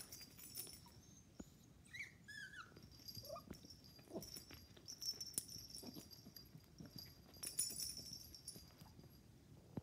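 Puppy play-wrestling with a cat: a few short, high, squeaky whines about two seconds in and another at about three and a half seconds, over faint scuffling on carpet.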